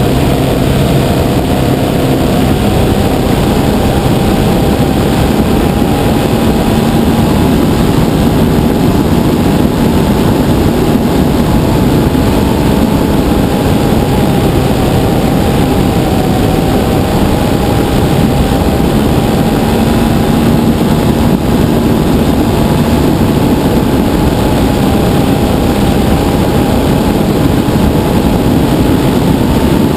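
Engine and propeller of a giant-scale RC Piper Cub running steadily at flying speed, heard from a camera mounted on the airframe, with heavy wind rush over the microphone. The engine note holds nearly level, wavering only slightly.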